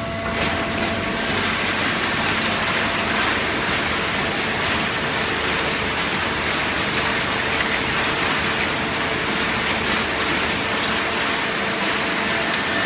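Hydraulic baling press running: a steady mechanical rushing noise with a faint hum that comes up right at the start and holds.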